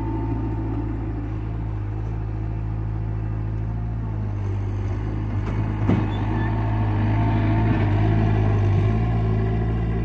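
Bobcat 751 skid steer loader's diesel engine running steadily, with a single sharp clank about six seconds in and the engine a little louder for a couple of seconds after.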